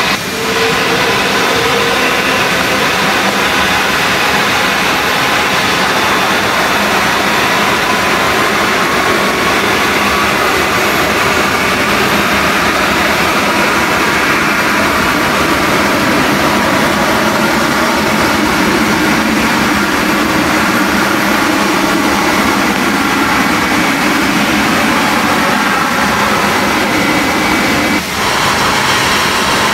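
Airbus A330 freighter's jet engines at takeoff thrust as it rolls down a wet runway: a steady, loud rush. About a second before the end the sound breaks off briefly and another jet airliner's engines carry on as it taxis.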